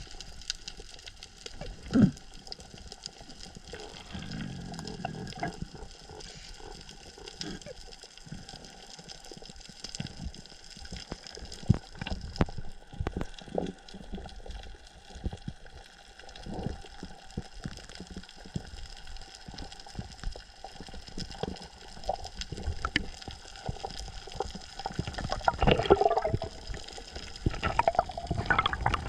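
Water sloshing and bubbling around a diver, picked up by the camera in or at the water, with scattered small clicks and knocks. It grows louder near the end, with splashing.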